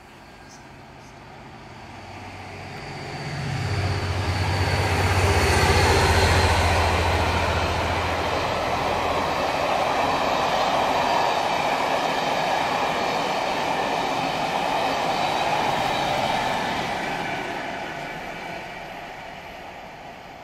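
West Coast Railways Class 57 diesel locomotive, an EMD two-stroke engine, approaching at speed under power and passing, its low engine drone swelling about three seconds in, loudest around six seconds, and gone by about nine. The charter train's coaches follow with a steady rush of wheels on rail that fades away near the end as the train recedes.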